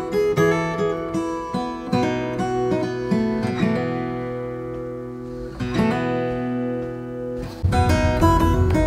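Background music on acoustic guitar: picked notes and ringing chords, then a louder, steady strum starts near the end.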